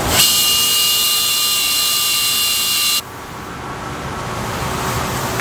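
Hand-held air-powered tool running in one burst of about three seconds, a hissing whine with a steady tone, cutting off suddenly.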